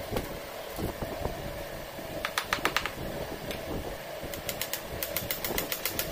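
Hammer tapping small nails into wooden lattice strips on a door frame: a quick run of four or five light taps a little after two seconds in, then a longer run of rapid taps from about four and a half seconds on.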